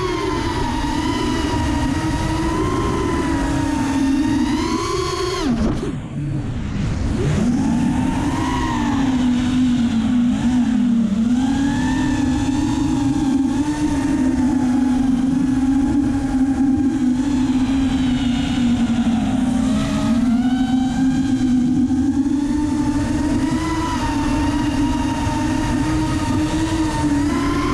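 Racerstar BR2205 2300kv brushless motors of a 5-inch FPV race quad whining, the pitch rising and falling with the throttle, over a rumble of wind on the onboard camera. About six seconds in the motors briefly drop off, then swoop back up.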